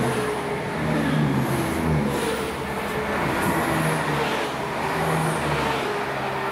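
Chiltern Railways Class 168 diesel multiple unit pulling away from the platform close by, its underfloor diesel engines revving with notes that rise in pitch again and again as the carriages pass.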